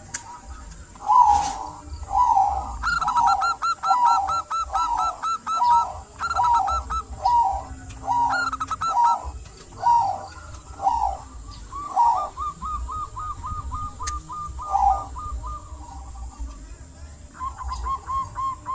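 Zebra doves (perkutut) cooing: a steady series of low cooing notes at about one and a half a second, with a faster run of short, higher notes over them. Then a rapid staccato series of short coos follows, and again near the end.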